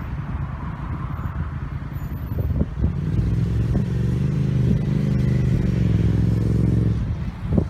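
A vehicle running close by: a low, steady-pitched hum that swells about three seconds in and drops away near the end, with a couple of knocks just before it builds.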